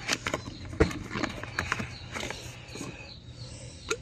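Packaging rustling and a series of clicks and knocks as a glass storage jar with a bamboo lid is unwrapped and handled, the sharpest knock about a second in and another click near the end.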